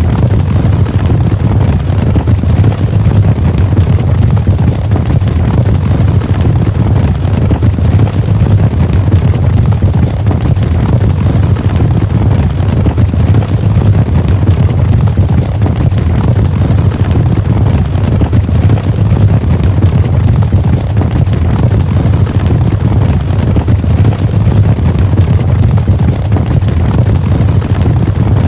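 Cavalry charge: many horses galloping together, their hoofbeats merging into a loud, steady, deep rumble.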